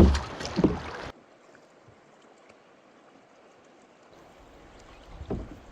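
Water rushing through small river rapids around a canoe, with a few paddle splashes and knocks. It cuts off abruptly about a second in to a faint hiss of calmer water, with another low splash near the end.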